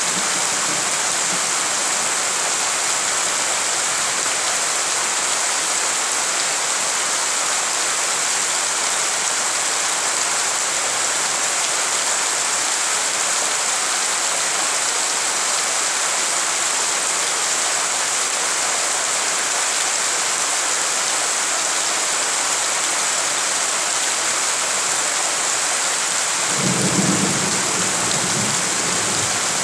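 Heavy rain pouring steadily onto a flooded courtyard and the puddles on it, an even hiss with no letup. Near the end a low rumble lasts about three seconds.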